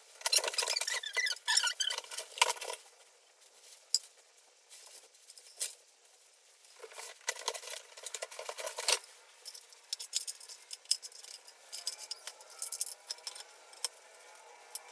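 Cardboard box and its packing being handled and rustled while a drum pad is unpacked: a dense crinkly rustle at first, another burst of rustling in the middle, then scattered light clicks and taps of handling.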